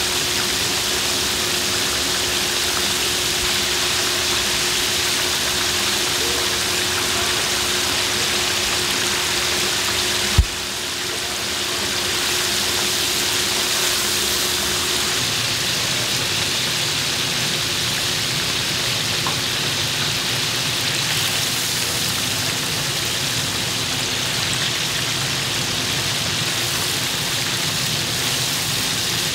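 Battered pork ribs deep-frying in a stainless-steel fryer, the oil sizzling and bubbling steadily. A faint steady hum runs under it for the first half, and a single short thump sounds about a third of the way in.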